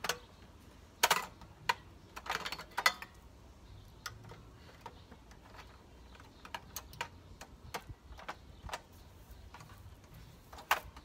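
Kitchen utensils and containers being handled on a cooking table: a few louder clatters near the start, then a run of small, irregular clicks and taps.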